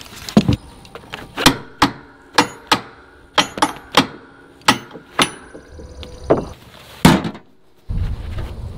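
A ratchet tie-down strap is released and pulled off a stack of lumber, with a dozen or so sharp, irregular clacks and knocks of the ratchet buckle and wood. A steady low rumble takes over near the end.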